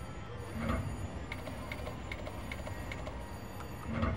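Railroad Riches video slot machine spinning its reels, with a regular electronic ticking of about two or three clicks a second, over low casino background hum.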